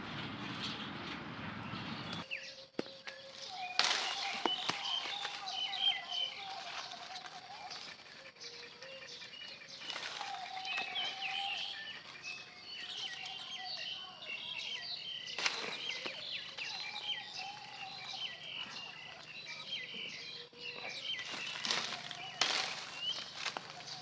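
Small birds chirping and twittering, with a longer wavering call repeating every few seconds. A steady noise cuts off about two seconds in, and a few sharp crackles or knocks stand out over the birdsong.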